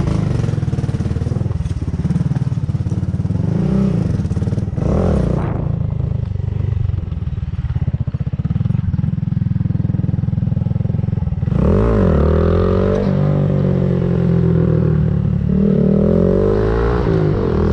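Honda Grom's 125 cc single-cylinder four-stroke engine running through a Yoshimura GP-Force aftermarket exhaust. It holds a steady note and is revved up and down several times: once about four seconds in, more strongly around twelve seconds, and again near the end.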